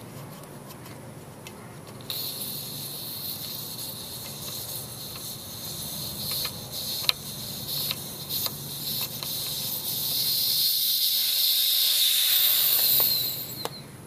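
Air hissing out of a golf cart tire's valve stem as the valve core is unscrewed. The hiss starts about two seconds in, grows louder near the end, then stops.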